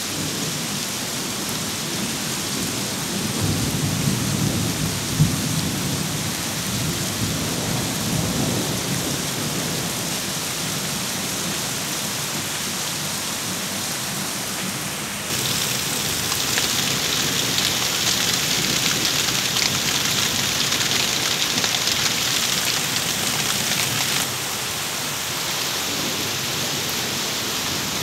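Heavy rain pouring down in a steady hiss, with a low rumble of thunder a few seconds in. Past the middle the hiss suddenly grows louder and brighter for about nine seconds, then drops back.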